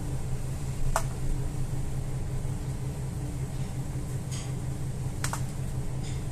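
Steady low mechanical hum, with a few short sharp clicks of a metal spoon against a stainless steel pot as rice stuffing is scooped; the sharpest click is about a second in, another about five seconds in.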